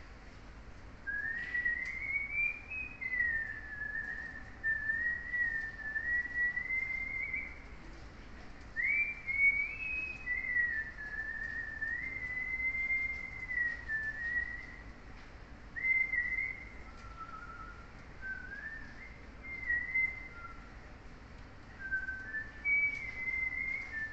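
A person whistling a slow, wandering tune, one clear note at a time with slides up and down between notes.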